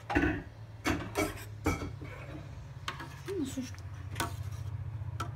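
A metal spoon stirring thick pumpkin cream soup in a steel pot, clinking and knocking against the pot several times, over a steady low hum.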